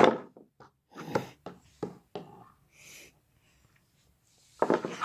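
Plastic Schleich horse figurines tapped and walked across wooden floorboards: a scattered series of light clicks and knocks, with a louder cluster of knocks near the end.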